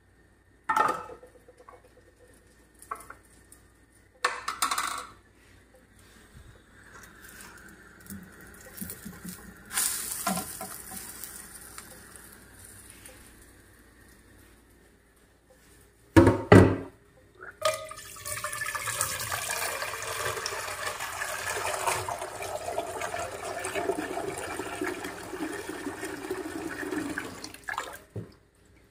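A few clanks of an aluminium saucepan being handled, the loudest about sixteen seconds in, then tap water running into the saucepan in a stainless-steel sink for about ten seconds, stopping near the end.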